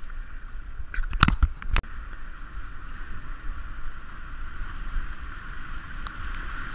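Whitewater rapid rushing steadily around an inflatable kayak as it paddles into the rapid, with a quick run of sharp knocks about a second in.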